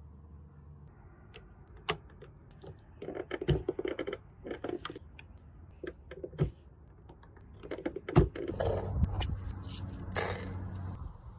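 Irregular sharp clicks and short metallic rattles and scrapes from handling an 1860 Colt .44 revolver, with the sharpest click about eight seconds in.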